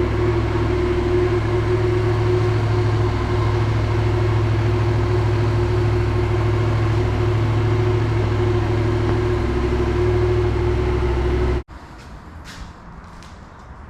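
The Yamaha XSR700's 689 cc parallel-twin engine idling steadily. It cuts off suddenly near the end, leaving a much quieter background with a few faint clicks.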